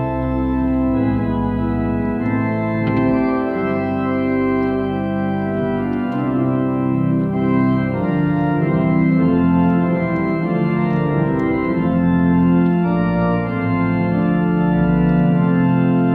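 Large three-manual pipe organ playing full, sustained chords over a deep bass, the notes changing in a slow, steady progression.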